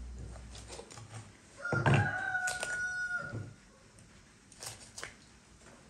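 A rooster crows once, a long held call of about a second and a half. Around it come soft clicks and taps of a knife cutting through the joints of a raw goose on a wooden board.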